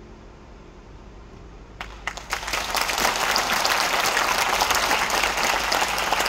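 Audience applauding. For about two seconds there is only a quiet hall, then a few scattered first claps, and the whole audience joins in dense, steady applause.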